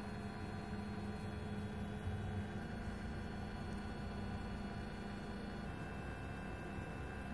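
Food 3D printer running as it extrudes and builds up layers: a steady motor hum, with faint high-pitched tones that shift a few times.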